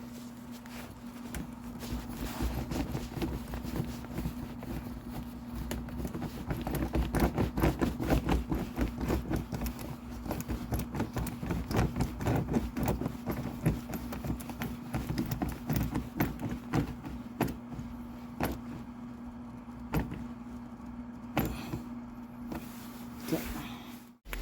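Irregular clicks and knocks from hand work on the car, densest in the middle, over a steady low hum; the sound cuts off abruptly near the end.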